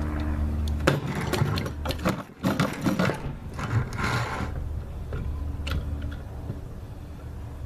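Rapid mechanical clicking and rattling for about three and a half seconds, starting about a second in, then quieter scattered clicks. A steady low hum stops just as the clicking begins.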